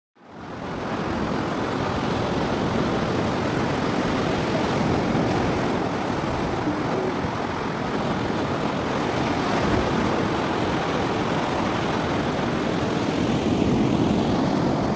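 Steady rush of sea surf breaking on the beach, mixed with wind on the microphone, fading in over the first second.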